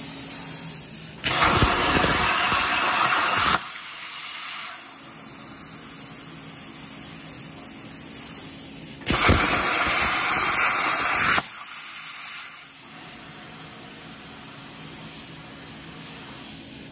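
An Everlast 82i plasma cutter on a CNC table cutting steel plate in two bursts of about two seconds each, each starting and stopping abruptly, with a quieter steady hiss between them. The torch is running on a freshly changed electrode and tip and is cutting cleanly.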